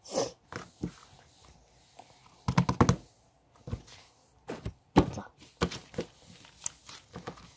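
Slime being squished and pressed in the hands, giving a scattered series of short clicks and pops.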